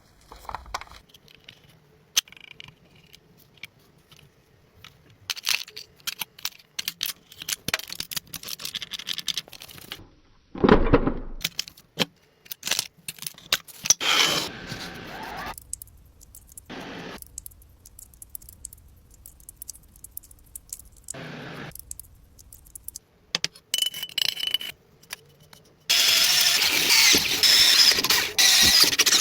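A small diecast model car being handled and worked on: scattered clicks and scrapes of small metal and plastic parts, with a few short louder bursts, then a loud steady hiss-like noise in the last few seconds.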